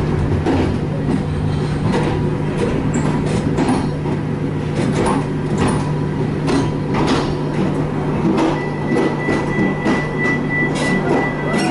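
Train running on the rails: a steady low rumble with irregular clicks and knocks from the wheels and car. A thin, steady high-pitched tone joins about three quarters of the way through.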